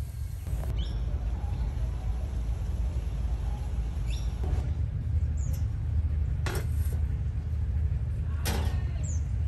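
Steady low outdoor rumble with a few sharp clicks and two short, high bird chirps.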